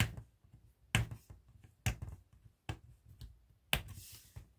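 Fingernails clicking sharply against a hard clear plastic display box about once a second as it is pried at. Near the end comes a short scratchy rasp as the tape sealing its side is picked at.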